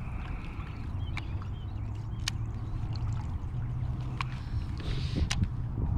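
Small waves lapping and gurgling against a plastic kayak hull over a steady low rumble, with about four sharp taps scattered through.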